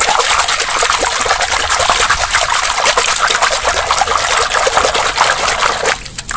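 Hand swishing and scrubbing a small plastic doll in a basin of foamy, soapy water: continuous splashing and sloshing that eases off about six seconds in as the doll is lifted out.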